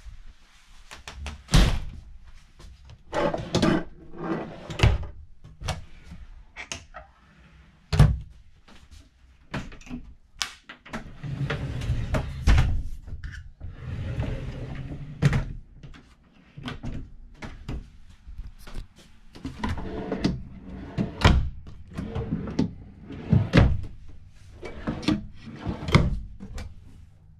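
Interior doors and drawers of a travel trailer being opened and shut: irregular sharp knocks and thuds with rustling handling noise between them. A low steady hum comes in during the second half.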